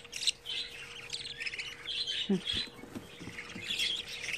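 Budgerigar chicks chirping in quick, high cheeps, the begging calls of hand-fed nestlings. A few low knocks come a little past two seconds in.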